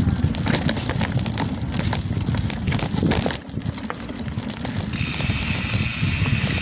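Bicycle rolling fast down a rough dirt trail: tyres crunching over ruts and stones, the frame rattling, and wind buffeting the microphone. A steady high-pitched whine joins about five seconds in.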